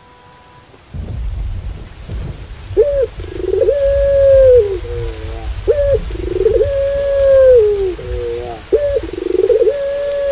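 Puter pelung (domestic Barbary dove) cooing three times, each phrase a short rising note, a long held coo and a lower trailing coo. The cooing starts about three seconds in over steady rain noise with a low rumble that begins about a second in.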